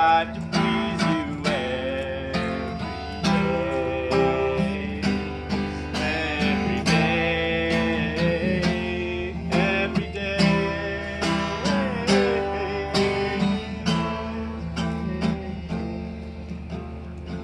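Acoustic guitar playing the tune of a folk-style song with regular plucked strums, and a wavering melody line above it. The music fades out near the end.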